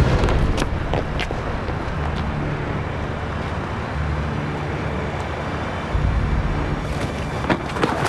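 A street scuffle: a few sharp knocks and scrapes of bodies and feet as a man is grabbed and shoved, about a second in and again near the end, over a low steady rumble.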